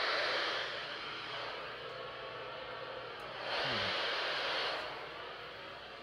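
Midland weather radio tuned to 162.400 MHz hissing static, with no station coming through; the hiss swells for about a second midway, then fades back.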